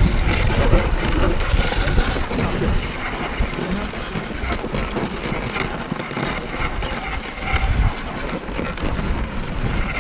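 Dog sled moving over packed snow, its runners scraping steadily, with wind rumbling on the microphone.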